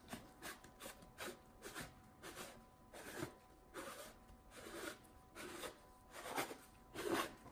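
Questar telescope barrel being screwed onto its thread by gloved hands, turned in short strokes: a series of faint rubbing, brushing sounds about two a second, with the loudest near the end.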